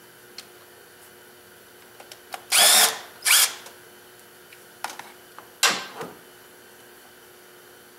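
Small cordless power driver whirring in three short bursts, two close together and a third a couple of seconds later, each spinning up and winding down, with a few light metallic clicks between them.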